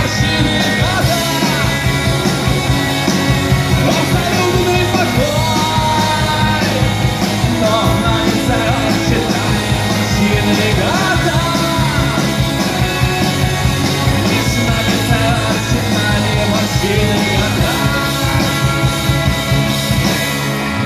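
Rock music playing, with a steady beat.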